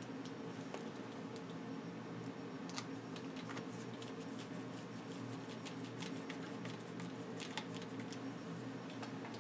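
Faint, scattered clicks and light taps of hands fitting parts on a bicycle handlebar, the brake lever clamp and its cable, busiest in the middle stretch, over a steady low hum.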